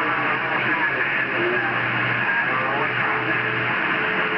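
Kenwood TS-890 receiver on CB channel 38 lower sideband: steady hiss of band noise with a weak, garbled voice of a fading long-distance station under it. A steady carrier tone comes in about three seconds in.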